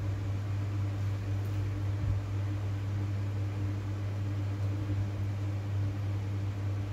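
A steady low mechanical hum with a faint hiss under it, like an appliance motor running. One soft knock comes about two seconds in.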